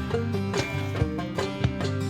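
Bluegrass-style background music with plucked banjo and guitar over a steady beat.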